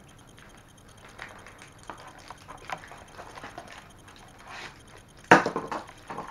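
Hands handling small plastic packets, boxes and paper slips, making scattered small crinkles and clicks, with one short, louder burst of rustling about five seconds in.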